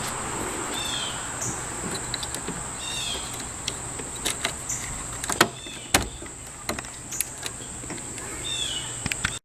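The 2002 Ford F-150 Lightning's supercharged 5.4-litre V8 running steadily at idle, with a constant high whine, a few sharp clicks and several short chirps.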